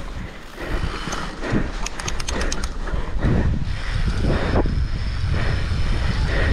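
Wind buffeting the microphone over the rumble and rattle of a bike riding a rough trail at race pace, with a quick run of sharp ticks about two seconds in.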